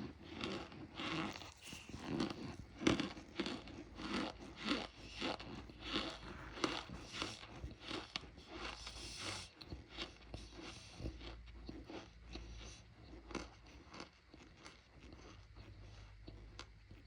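Close-up crunching of cornstarch being bitten and chewed, a run of sharp crunches several a second that grows fainter near the end.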